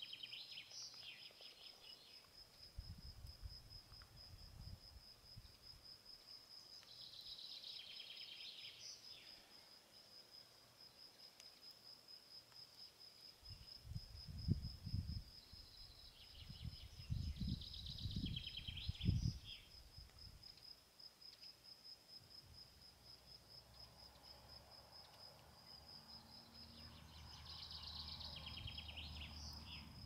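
An insect, cricket-like, trills high and steady throughout. A lower chirping call comes back about every nine to ten seconds. Low rumbles on the microphone are loudest in the middle.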